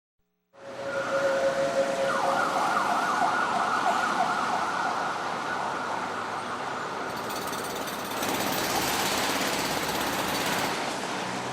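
Opening of a recorded track after a brief silent gap: a siren-like warbling tone over a loud noisy hiss, with a brighter wash of noise coming in about eight seconds in.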